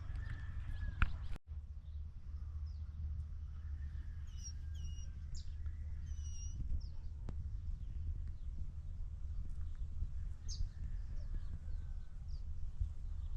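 Small birds chirping in short, high calls, mostly in the middle of the stretch, over a steady low rumble.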